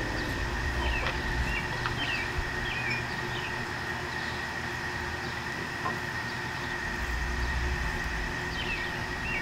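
Outdoor ambience: a steady low rumble with a thin, steady high whine over it, and short bird chirps in the first few seconds and again near the end.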